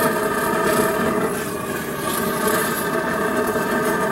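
Gas burner heating a steel exhaust-manifold prop, running steadily: an even drone with a constant hum through it.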